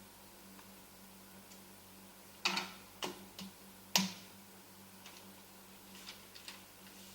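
A few sharp clicks and knocks, the loudest about two and a half and four seconds in, with fainter ticks later, over a faint steady hum.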